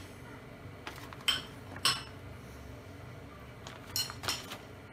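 Plastic bag of shredded melting cheese crinkling in four short, sharp crackles as it is shaken out and lifted away.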